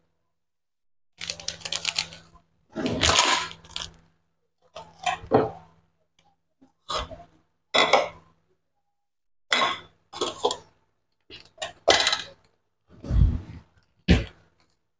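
Thick spiced tomato sauce with fish bubbling and popping in a frying pan as it simmers down to reduce. The bubbles burst in irregular clusters every second or two, some with a deep blop.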